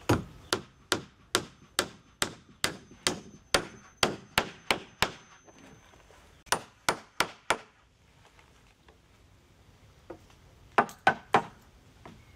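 Hammer striking wood in repeated blows, about two to three a second for about five seconds, then four more after a short pause, and a quick group of three near the end.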